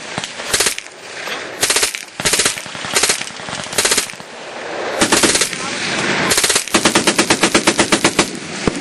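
Vindicator BF1 belt-fed .22LR rifle firing full-auto: several short bursts of sharp cracks, then a longer rapid run of evenly spaced shots near the end.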